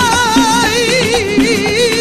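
Music: a Spanish-language Latin song in a flamenco-rumba style, with a long held note wavering in strong vibrato over a repeating accompaniment.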